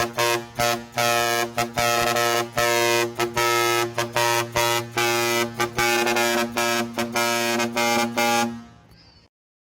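Four-foot air horn blaring in quick rhythmic blasts, about three a second, with a few changes of pitch; it stops about a second before the end.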